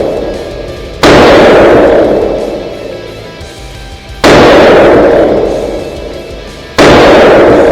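Three gunshots from an RH-10 fired at a range, spaced about two and a half to three seconds apart. Each shot is sharp and very loud and rings out for a couple of seconds before the next.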